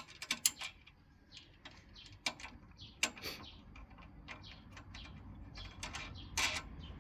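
Scattered clicks and taps of plastic and metal parts being handled and fitted by hand on a petrol lawn mower, irregularly spaced, with a few sharper knocks.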